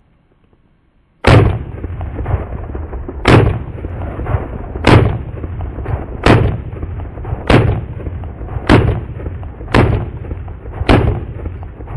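AR-15 pistol firing steel-cased ammunition semi-automatically: eight loud shots starting about a second in, spaced a second to a second and a half apart and coming slightly faster towards the end.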